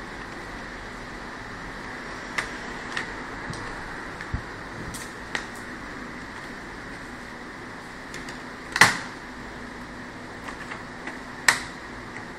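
Plastic clips of an HP G62 laptop's top cover snapping loose as the cover is pried and lifted off the base. Scattered sharp clicks come every second or so, with the loudest snap about nine seconds in and another about eleven and a half seconds in, over a steady background hiss.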